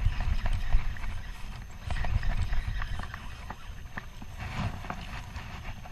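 Spinning reel being cranked fast to reel in a fish, giving irregular ticks, with water splashing around the angler's legs over a steady low rumble.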